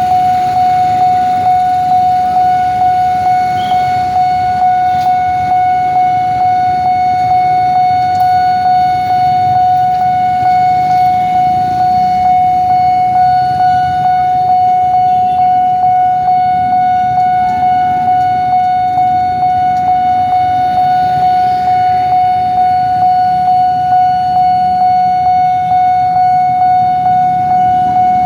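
Railway level-crossing warning siren sounding one steady, unbroken high tone, over a low rumble.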